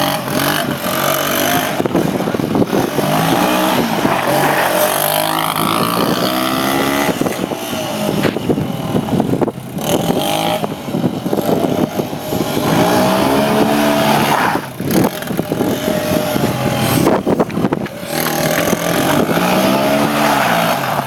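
Motorcycle engine being ridden and revved, its pitch repeatedly rising and falling as the throttle opens and closes.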